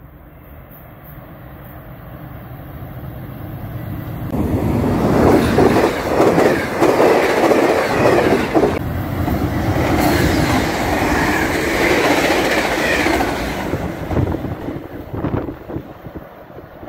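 VIA Rail passenger train led by P42DC diesel locomotives passing at speed. Its rumble grows over the first few seconds and turns loud about four seconds in, with rapid wheel clatter over the rails and the rush of the passing cars. The sound then fades as the train draws away near the end.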